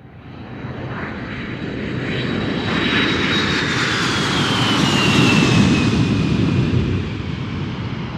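AirAsia jet airliner flying past: engine noise swells to a peak about five seconds in, then eases, with a high whine that falls in pitch as it goes by.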